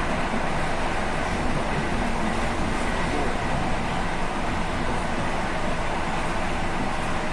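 ED4M electric commuter train in motion: a steady rumble of wheels on rail with a faint steady high tone over it.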